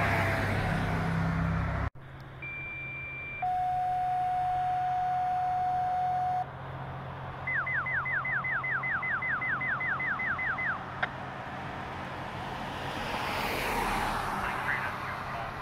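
Fire-dispatch paging tones from a scanner radio: a short high tone, then a long steady lower tone (a two-tone page), followed by a rapid run of falling beeps, about four a second, that ends in a click. Before the tones a car passes and the sound cuts off abruptly; near the end another car's road noise rises as it passes close.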